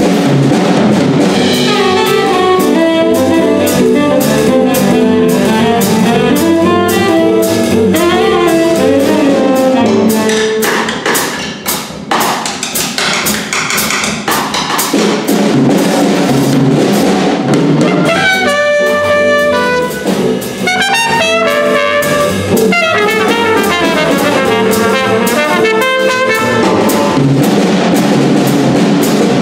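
Small jazz combo playing live: trumpet and saxophone lines over drum kit, upright bass and archtop electric guitar. A drum-kit break comes partway through.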